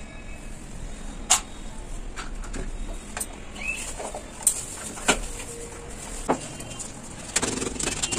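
Scattered sharp clicks and taps from handling a spoon, a tea container and a packet beside a steel saucepan heating over a fire, over a steady low hiss. A single short bird chirp comes about three and a half seconds in.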